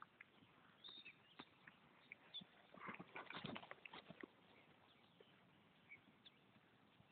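Faint hoofbeats of a ridden horse on grass, thickening into a quick cluster of thuds about three seconds in as the horse passes close by.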